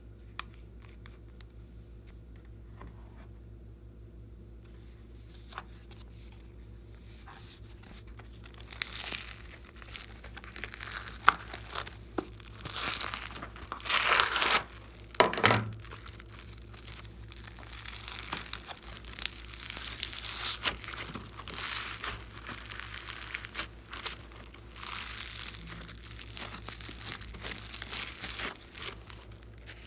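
Crinkling and tearing at close range: quiet at first, then irregular crackling bursts from about eight seconds in, loudest around the middle.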